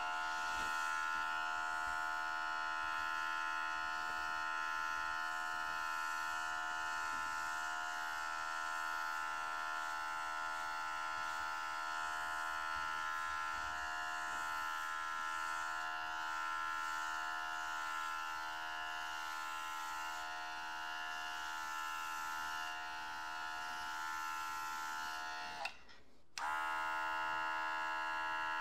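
Small cordless airbrush compressor motor running steadily with a buzzing hum while driving an Iwata Eclipse airbrush, an air-hungry brush for such a compressor. Near the end the motor winds down, stops for about half a second, and starts up again.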